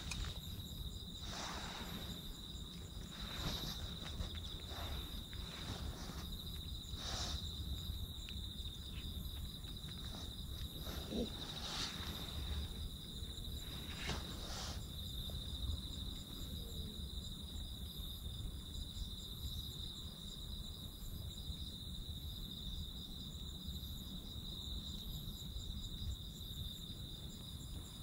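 Night insects trilling: one steady high trill, with a fainter, higher chirp repeating about once a second. A few soft scuffs and clicks come in the first half.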